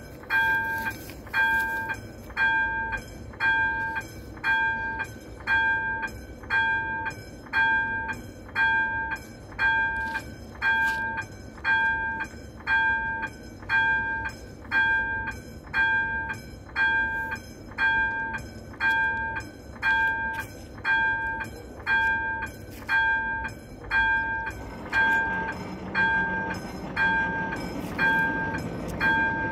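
Railway level-crossing warning bell ringing a short two-tone ding about once a second as the crossing's red lights flash for an approaching train. Near the end a low hum, the barrier drive lowering the booms, joins in, and the bell stops as the booms come down.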